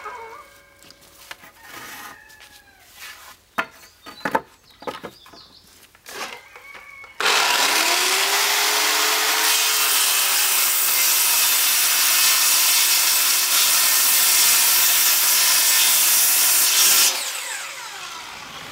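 A few light knocks, then a power saw starts suddenly and cuts through a wooden plank at a steady pitch for about ten seconds before it stops and winds down.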